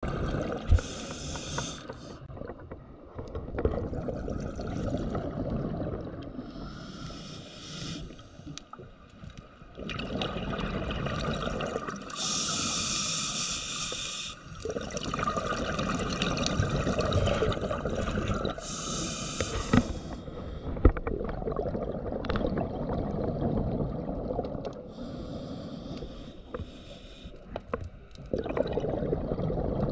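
A scuba diver's breathing gear heard underwater: a hiss of gas every several seconds, between stretches of rumbling, gurgling exhaust bubbles.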